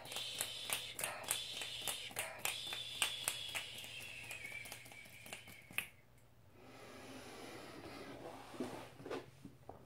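Quick finger snaps, two or three a second, over a faint high tone that slides slowly downward; they stop about six seconds in, leaving soft breathy rustling.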